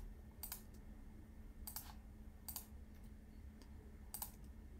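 Four faint, separate clicks from computer input, spaced about a second apart, over a steady low hum.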